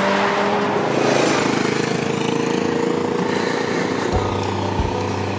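A motorcycle passes close by and pulls away up the road, its engine loudest in the first second and a half and then fading. A low wind rumble on the microphone comes in near the end.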